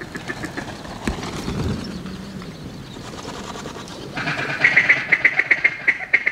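Duck calling: a loud, rapid run of evenly pulsed chattering notes, about seven a second, starting about four seconds in.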